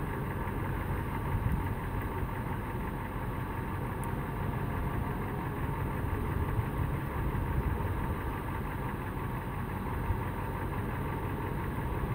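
A vehicle engine idling steadily, a continuous low hum.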